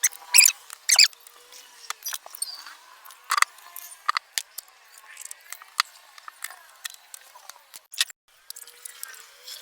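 Irregular sharp clicks, taps and light metallic clinks from hand work on a front-load washing machine as its concrete counterweights are fitted and fastened.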